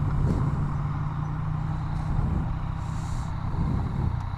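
Yamaha FZ-09's three-cylinder engine running at a steady pitch under the rider, with road noise.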